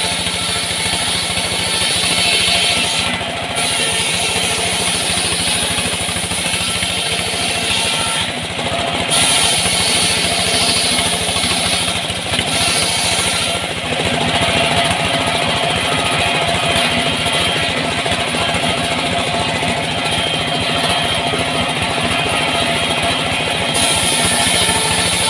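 Engine-driven wood saw running steadily while cutting sengon timber, with a constant engine drone throughout.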